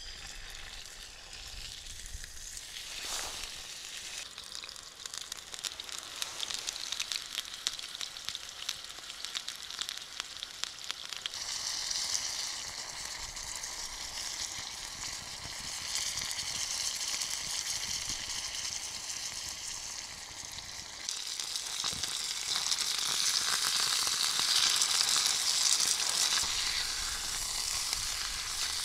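A piece of meat sizzling in a small pan over a wood fire, with fine crackling throughout. The sizzle grows louder in two steps, about a third and about two-thirds of the way in.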